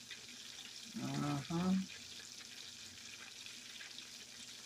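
Chicken wings frying in peanut oil in a cast iron skillet: a steady crackle and sizzle of bubbling oil. About a second in, a person's voice gives a short hum.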